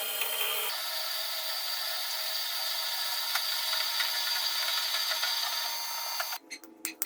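An electric power tool running steadily with a high whine. The sound shifts abruptly to a higher hum about a second in, then drops away near the end, leaving a few clicks.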